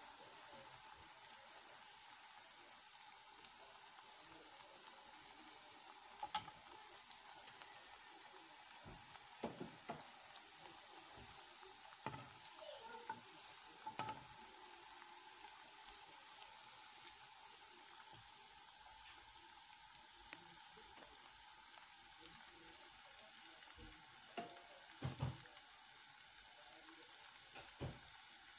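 Bitter gourd rounds deep-frying in a pan of hot oil, a steady faint sizzle, with a few short clinks of a metal slotted spoon against the pan as the pieces are turned.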